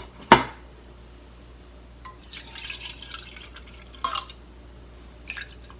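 A sharp knock just after the start. About two seconds in, shiitake soaking water is poured into a pot, a splashing trickle lasting about a second and a half. Two light clinks follow.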